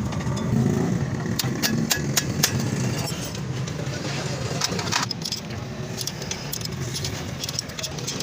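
Metal tools and parts clinking in short, sharp knocks, a handful clustered about two seconds in and another about five seconds in, over a steady low rumble.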